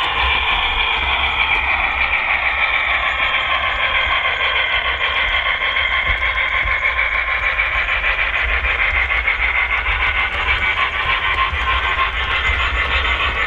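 Model train running steadily past: an articulated steam locomotive model and a long rake of passenger coaches rolling over the track, a continuous rumble with a rapid, even flutter.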